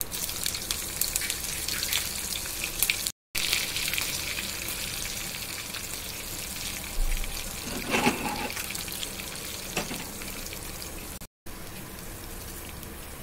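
Hot oil sizzling in a small pan as a tempering of sesame seeds, green chillies and curry leaves fries. The sizzle is louder from about three seconds in, with a few light clatters around eight to ten seconds.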